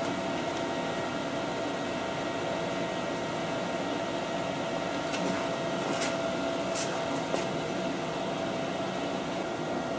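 Steady machine hum with a few thin, high whine tones running through it, and a couple of faint ticks partway through.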